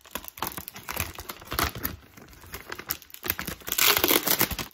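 Plastic packaging crinkling and rustling in irregular crackles as it is handled and pulled open, loudest in a long rustle near the end.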